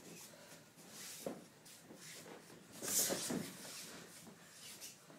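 Boxing sparring: feet shuffling on the ring mat and scattered soft knocks of gloves, with one louder thud about three seconds in.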